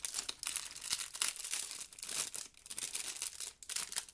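A thin clear plastic sleeve crinkling as a roll of washi tape is worked out of it: a dense, irregular crackle of handled plastic.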